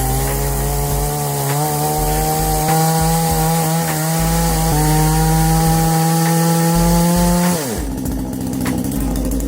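Chainsaw running at high revs as it cuts wood, its steady pitch climbing slightly. About eight seconds in, the revs drop sharply to a lower, rougher pitch.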